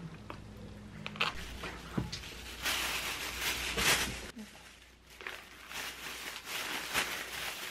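A clear plastic bag rustling and crinkling as it is handled, in a few bursts with short pauses between them.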